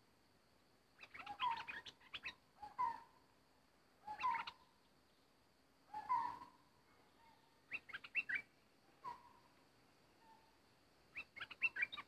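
A bulbul singing short phrases of quick whistled notes, one phrase every one to two seconds, with quiet gaps between.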